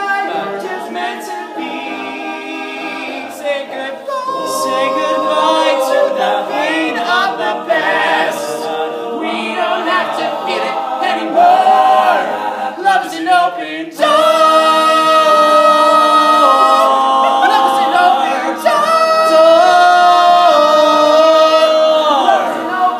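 All-male a cappella group singing in multi-part harmony, holding sustained chords with moving vocal lines. The singing jumps suddenly louder about fourteen seconds in and stays full from there.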